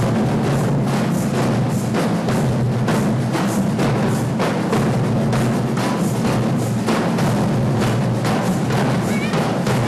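Percussion group drumming a steady, driving rhythm: deep drums underneath with sharper strikes repeating several times a second.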